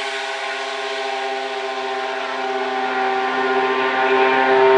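A pair of drag-racing snowmobiles held at full throttle down the strip, a steady high-pitched engine drone that grows a little louder near the end.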